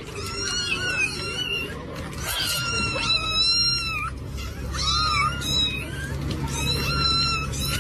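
Cat meowing over and over in short, high-pitched calls that bend up and down in pitch, several a second.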